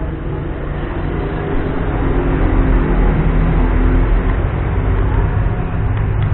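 A motor engine running, a low rumble that grows louder over the first two seconds and then holds steady.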